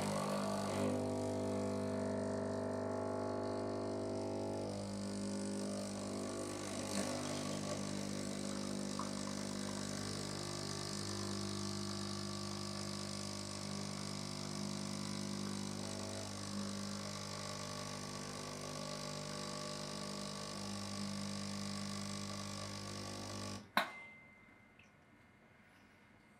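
Sage (Breville) Oracle Touch espresso machine's pump running steadily while it pulls an espresso shot. The pump hums evenly, then stops with a click near the end as the shot finishes.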